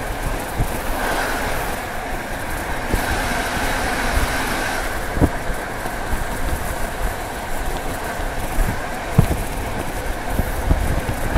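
A passenger train's carriage running along the track, heard from beside the coach window: a steady rolling rumble of steel wheels on rail, with a high hum and a few sharp clicks from the wheels crossing rail joints.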